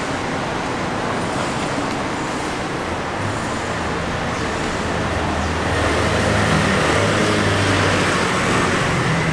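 City street traffic noise, with a vehicle engine hum building up about a third of the way in and growing a little louder past the middle.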